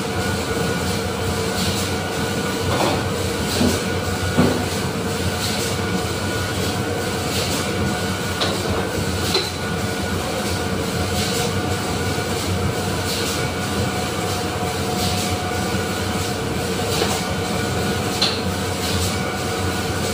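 Barrel-plating line machinery running steadily, with an overhead hoist lifting a plating barrel: a constant hum with several steady high tones and scattered metallic clanks and squeaks, the loudest knock about four seconds in.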